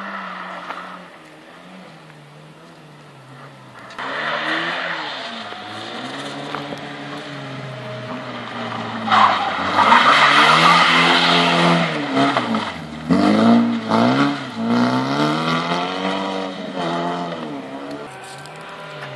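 Ford Fiesta XR2i's four-cylinder engine revving hard on a loose dirt rallycross stage, its revs climbing and dropping again and again through the gears. From about nine seconds in the car skids on the loose surface around a tyre-stack corner, the loudest part.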